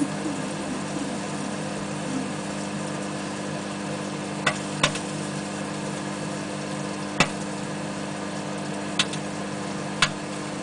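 Microwave oven running with a steady hum while microwave popcorn starts to pop: about five sharp single pops, spaced a second or two apart, from about four seconds in.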